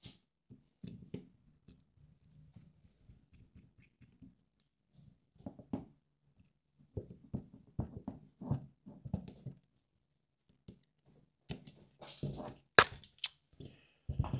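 Hands working a hex driver, screws and a brushless motor on a carbon-fibre drone arm: scattered small clicks, taps and light knocks with short gaps between them. The sharpest cluster of clicks comes about twelve to thirteen seconds in.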